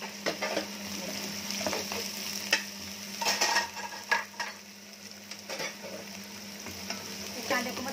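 Chopped onions, green chillies and garlic sizzling in hot oil in a non-stick kadhai, stirred with a wooden spatula that scrapes across the pan in uneven strokes.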